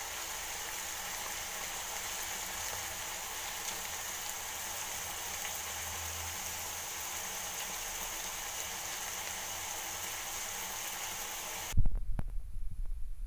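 Chicken pieces, onion and capsicum sizzling in oil in a frying pan, a steady hiss. Near the end the hiss cuts off suddenly and a loud bump is followed by a few knocks.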